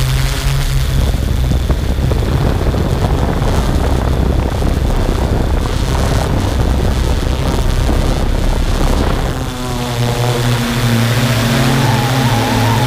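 A vehicle engine running with a steady hum, largely covered by a loud rushing noise through the middle. About ten seconds in, the engine comes clear again, and a whine rises near the end.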